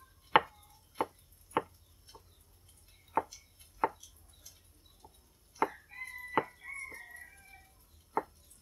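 A kitchen knife slicing straw mushrooms on a wooden chopping board: about ten sharp knocks of the blade on the board at an uneven pace.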